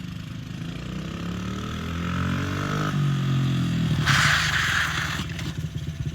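Small dirt bike engine revving up, its pitch rising for about three seconds, then falling back. A short hissing rush comes about four seconds in, and the engine keeps running with an uneven low putter.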